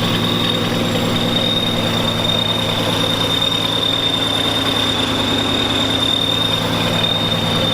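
Car engine idling steadily, with a constant high-pitched whine over the running.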